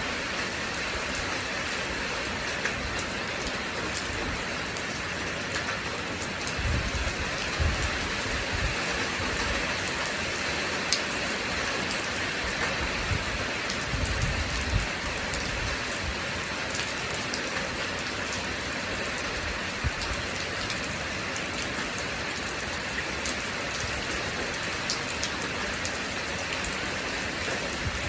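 Steady rain falling, with individual drops ticking sharply now and then. A few brief low rumbles rise under it, about a third and half of the way through.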